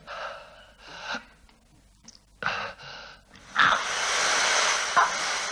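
A man gasping for breath: several short, rasping breaths, then a longer, louder rasping breath starting about three and a half seconds in.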